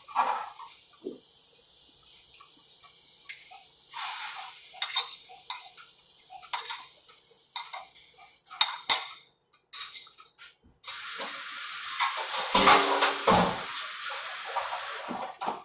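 Clinks and scrapes of a fork, bowl and pan as eggs go into the pan, then a steady hiss for about five seconds near the end.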